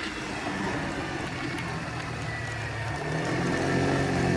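A small vehicle engine running, with a noisy rumble that gives way to a steady engine hum growing louder about three seconds in.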